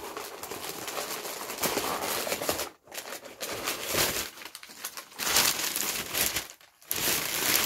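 Crumpled brown kraft packing paper being pulled out of a cardboard shipping box, crinkling in bursts with two short pauses.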